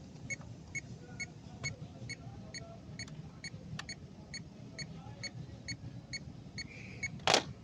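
Electronic beeping: a short high beep repeating steadily about twice a second. A brief loud rustling noise cuts in near the end.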